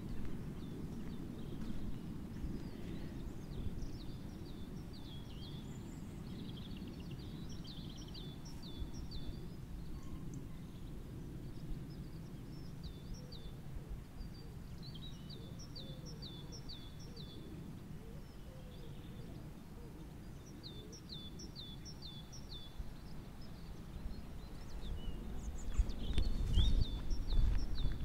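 A songbird sings short phrases of four or five quick, repeated, falling notes every few seconds over a steady low rumble of outdoor background noise. The rumble grows louder near the end.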